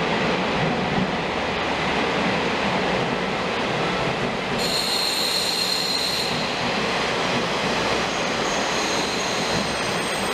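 KiHa 47 diesel railcars pulling into a station platform, a steady rumble of engines and wheels on the rails. About four and a half seconds in, a high-pitched squeal from the running gear sets in for under two seconds, and fainter squealing returns near the end.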